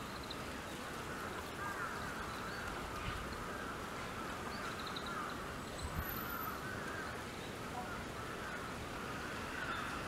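Birds calling repeatedly over a steady outdoor background hiss, with a couple of faint clicks.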